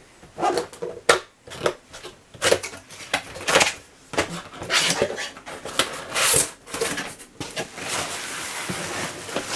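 Cardboard box being opened by hand: irregular knocks, scrapes and rustles of the cardboard and packaging, then a steady rasping for about a second and a half near the end.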